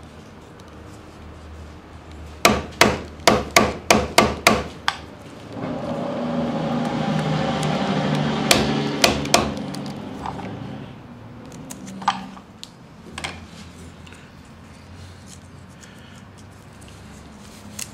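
A hammer striking a 1.5-inch chisel to cut a belt-loop slot through leather: a quick run of about eight sharp blows, then a few more spaced strikes. In between, a louder steady noise swells for about five seconds and fades.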